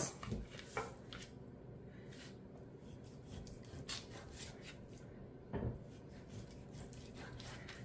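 Knife slicing through a raw pork shoulder on a plastic cutting board: faint rubbing, sawing strokes, with a soft thump about five and a half seconds in.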